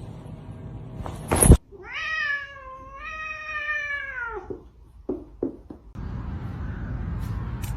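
A sharp knock, then a cat giving one long drawn-out meow of about two and a half seconds that falls in pitch at the end, followed by a few short sounds.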